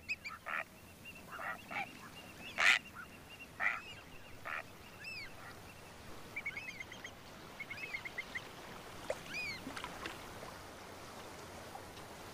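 Waterbirds giving short nasal honking calls, scattered singly and in quick runs through the first eight seconds or so, the loudest about three seconds in, over a faint hiss.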